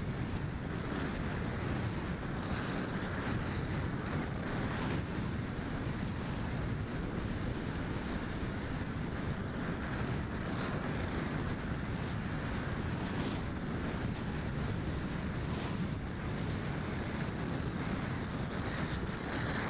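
Onboard audio from an FPV model plane in flight: a steady rush of wind over the airframe and microphone, with a high motor whine that wavers and eases off a few times as the throttle changes.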